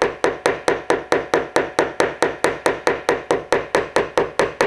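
A small toffee hammer tapping a hard plastic knock-down tool against a car door panel, in quick, even light taps at about four a second. The taps are knocking down the high spot that glue pulling raised around the dent.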